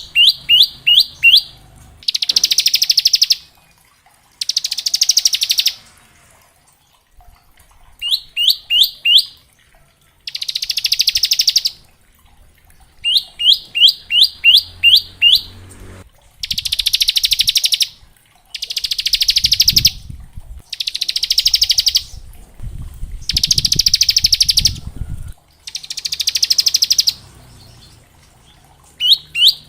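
Bar-winged prinia (ciblek) singing: short runs of quick, rising chirped notes alternate with repeated rapid buzzing trills, each about a second and a half long (the 'ngebren' or 'bren' trill).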